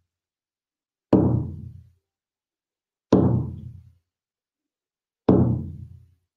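Shamanic frame drum with a rawhide head struck with slow single beats, three of them about two seconds apart. Each beat is a low, ringing beat that fades away within about a second.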